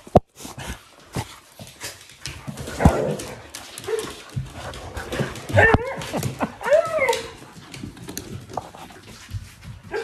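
Excited huskies whining, with several drawn-out cries that rise and fall about halfway through. Claws click and scrabble on a wooden floor, and fur brushes against the microphone.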